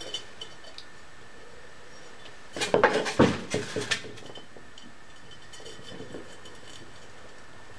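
Metal stove body and bicycle brake cable being handled, with a burst of sharp metallic clicks and scrapes between about two and a half and four seconds in, and a few faint ticks otherwise.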